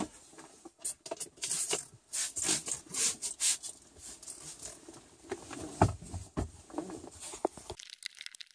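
A car window being cleaned and wiped by hand: irregular rubbing and swishing across the glass, with a few short squeaks about six and seven and a half seconds in. The sound stops abruptly near the end.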